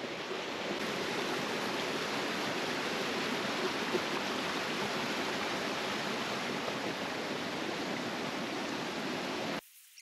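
Small rocky forest stream rushing steadily over stones and a little cascade. The sound cuts off suddenly near the end.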